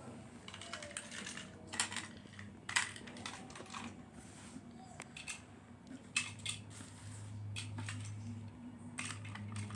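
Irregular hard plastic clicks and clatter as a TrackMaster toy engine and its wagon are handled and set on plastic track, with a low steady hum joining about six seconds in.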